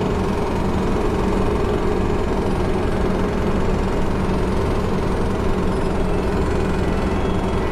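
City bus engine running at a steady, unchanging pitch, heard from inside the passenger compartment.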